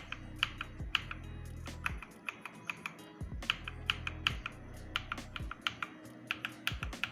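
Keys being typed on a mechanical keyboard fitted with Akko V3 Cream Black Pro switches, a run of clicky keystrokes in quick irregular clusters, with background music underneath.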